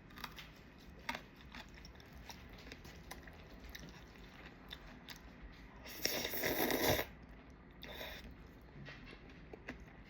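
A person eating jjajang ramyeon noodles: soft chewing with scattered small clicks. About six seconds in comes a louder noisy burst lasting about a second, and a weaker one follows near eight seconds.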